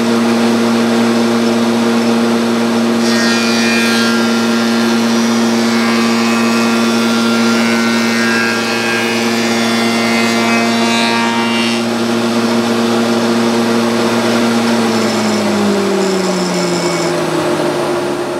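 Small spindle moulder (wood shaper) running with a steady hum. From about three to twelve seconds in, its cutter block cuts a cove and recess into the back of a solid maple panel, adding a higher hiss. Near the end the machine spins down, its pitch falling.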